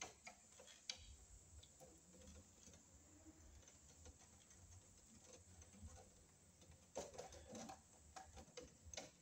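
Mostly near silence, with faint clicks and light rustling of electrical wires being folded and handled in a breaker panel. The clicks are scattered at first and come more thickly near the end.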